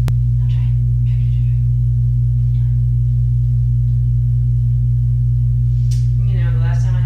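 A loud, steady low hum, with a single sharp click just after the start and a short wavering pitched call near the end.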